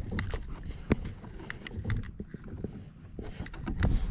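Irregular short clicks and knocks, several a second, over a low rumble.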